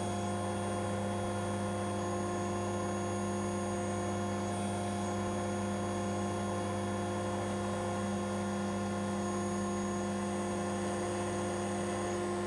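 Airbus H125 helicopter running steadily in flight, heard muffled as a constant hum made of many fixed tones, with no change in pitch or level.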